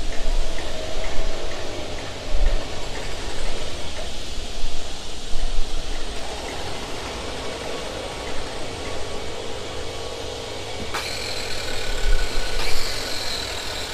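A low, steady outdoor rumble, then about eleven seconds in an electric hand planer starts with a sudden high whine and cuts along a stack of chipboard panels.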